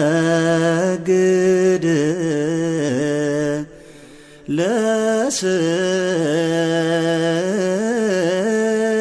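A man's voice chanting a slow, ornamented Ethiopian Orthodox hymn on long held notes. It breaks off for about a second a little before halfway, then comes back in with an upward swoop.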